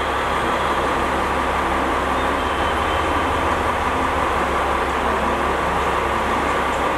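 JR KiHa 40 diesel railcar drawing slowly into a station platform and easing to a stop, its diesel engine giving a steady drone over the rolling noise of the train.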